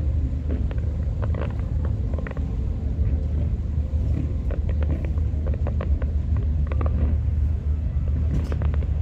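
Fireworks going off at a distance: many sharp bangs and crackles, irregularly spaced, over a steady low rumble.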